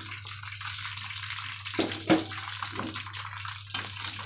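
Small tofu pieces deep-frying in hot oil in a wok, a steady crackling sizzle as they finish frying golden. A few short knocks sound over it, the loudest about two seconds in and another near the end.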